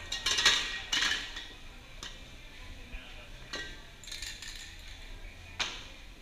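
Aerosol spray-paint cans clinking against one another as one is picked out of a tightly packed row: a handful of sharp metallic clinks, loudest in the first second or so.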